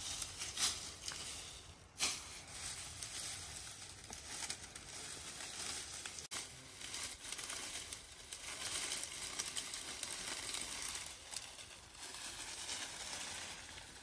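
Dry palm fronds crackling and rustling, an irregular run of small crackles with a couple of sharper snaps in the first two seconds.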